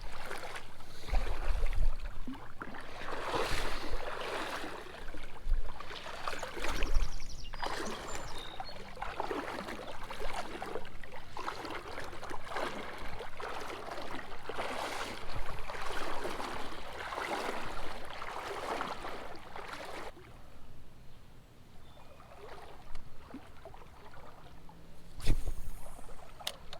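Legs wading through creek water, a sloshing swish with each stride, roughly one every one and a half to two seconds; the sloshing stops about twenty seconds in, leaving quieter water sound, and a single thump comes near the end.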